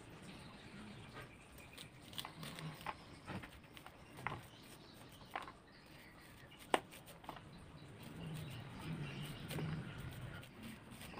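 A kitchen knife cutting the kernels off an ear of sweet corn onto a plastic plate: faint scraping strokes with scattered crisp clicks, the sharpest about two-thirds of the way through.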